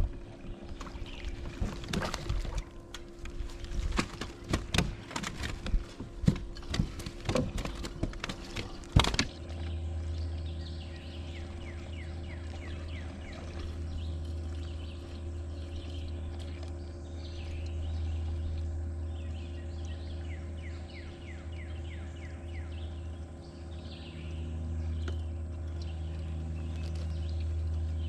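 A run of sharp clicks and knocks for the first nine seconds or so, then an abrupt change to birds chirping repeatedly over a steady low hum.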